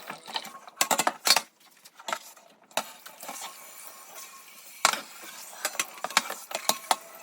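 Dishes and cutlery clinking and knocking as they are handled and set down, with a quick cluster of clinks about a second in and single knocks near three and five seconds.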